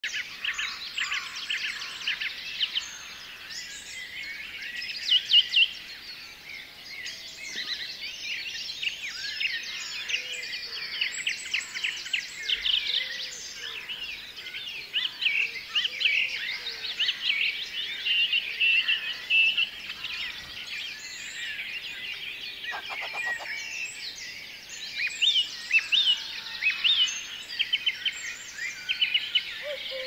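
American dipper singing: a long, busy run of varied high trills, whistles and quick repeated chirps, with a short lower rattling trill about two-thirds of the way through.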